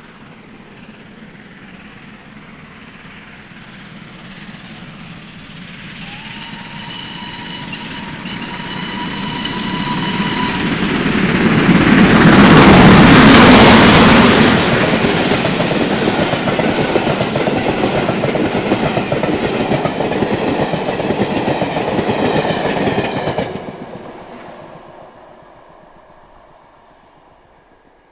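Two Great Western 4-6-0 steam locomotives, Hall class 4965 and Castle class 5043, double-heading a train up a steep bank and passing close by. The sound builds as they approach, with a steady steam whistle for about four seconds, is loudest as the engines pass, holds while the train runs by, then drops off sharply and fades.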